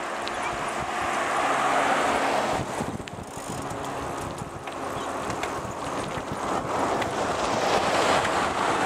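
Wind rushing over the microphone and bicycle tyres rolling on asphalt while riding along, a steady rushing noise that swells and dips.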